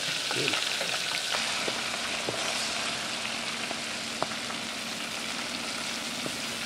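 Raspberry-barbecue-marinated frog legs sizzling on hot grill grates: a steady hiss of cooking meat, with a few faint clicks, the sharpest about four seconds in.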